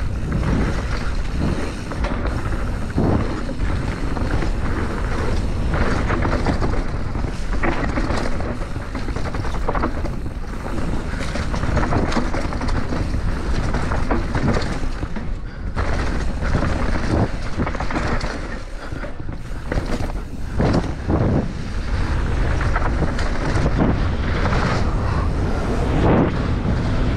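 Wind rushing over an action camera's microphone as an enduro mountain bike descends a dirt trail at speed, with tyres rolling on dirt and the bike's chain and suspension clattering over bumps in frequent short knocks.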